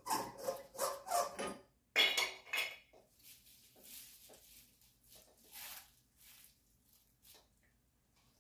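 Light bulbs being unscrewed from a ceiling fixture's sockets and handled in its glass dome, glass clinking against glass in a quick run of clinks and scrapes. The clinks are loudest about two seconds in, then fade to fainter, scattered handling noises.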